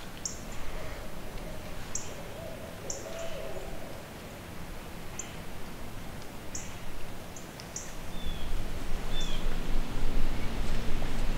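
An owl hooting, a short run of hoots about one to three seconds in, with short high bird chip notes scattered throughout. From about eight seconds a low rumble grows louder.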